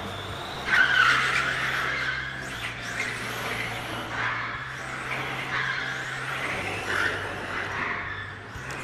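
A 1:10 Tamiya FF03 front-wheel-drive RC touring car with a 10.5-turn brushless motor lapping a carpet track: motor, drivetrain and tyre noise that swells and fades several times as it runs, loudest about a second in.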